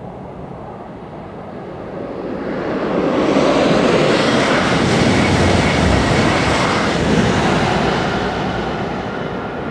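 High-speed train passing at speed: a rushing roar that builds about two seconds in, holds for several seconds as the train goes by, then fades away.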